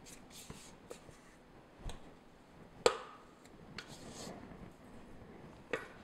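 Spatula scraping cookie dough out of a stainless steel mixing bowl, with a few sharp knocks of the spatula and bowl, the loudest about three seconds in and another near the end.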